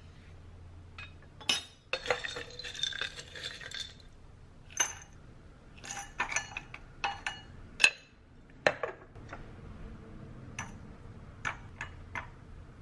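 Cutlery and dishes clinking: a run of sharp ringing clinks of utensils on ceramic or glass, with a spell of scraping and clattering, like stirring in a bowl, about two seconds in.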